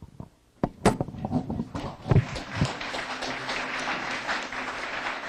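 A few knocks and thumps, then an audience breaks into steady applause about two seconds in.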